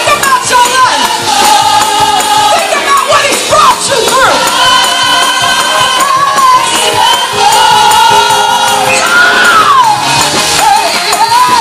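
Gospel youth choir singing a praise break at full volume, with long held notes and voices swooping down in pitch a couple of times, over a music accompaniment.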